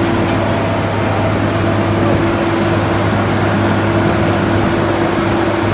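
The drilling rig's Cummins 6CTAA six-cylinder diesel power unit and hydraulic pumps running steadily at constant speed, with a steady low hum.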